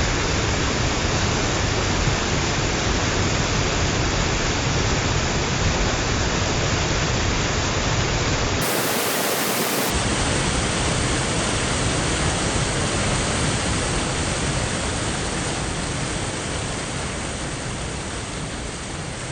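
Small waterfall rushing, a steady loud noise of falling water. The low rumble drops out for about a second just after the middle, and the sound fades a little near the end.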